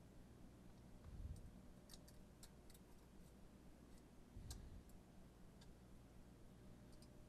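Faint scattered clicks and light taps of saxophone keywork being handled while the side B-flat lever is fitted onto the body, with two dull bumps, one about a second in and one about four and a half seconds in.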